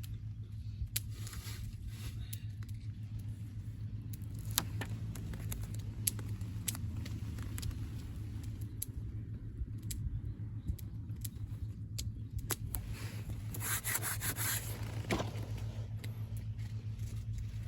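Scraping and rubbing handling sounds with scattered sharp clicks over a steady low rumble, with a louder stretch of scraping about fourteen seconds in.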